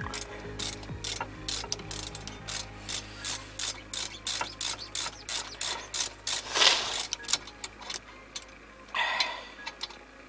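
Hand ratchet clicking steadily as it turns a T45 Torx bolt into the brake assembly, the pawl ticking a few times a second on each return stroke. A louder rasping scrape comes about two-thirds of the way through, and a shorter one near the end.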